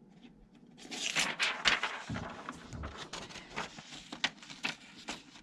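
A sheet of paper rustling as it is handled and fed into a Sears 10K40 daisy wheel typewriter, with scattered sharp clicks and knocks from the machine's paper-handling parts.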